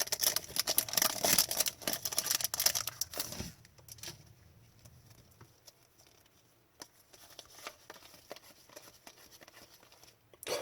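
Foil wrapper of an Upper Deck hockey card pack crinkling and tearing as it is opened, for about three and a half seconds. Then only faint scattered clicks of cards being handled, with one short rustle near the end.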